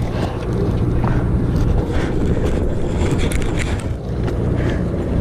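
Steady low drone of a sportfishing boat's engine, with wind buffeting the microphone and a few faint clicks.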